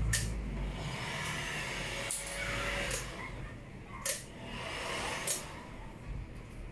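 A squeegee rubbing over film on a scooter headlight: several rubbing strokes that swell and fade, with sharp clicks about two, three, four and five seconds in.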